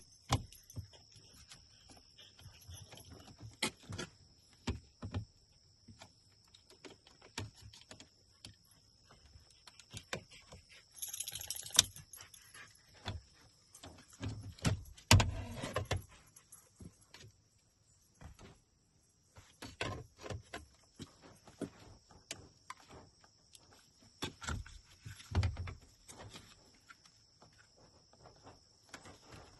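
Scattered clicks, taps and rattles of hand tools and loose parts as a pickup's door handle and switch panel are taken apart, with a few louder knocks and a brief hiss. A faint steady high-pitched tone runs underneath.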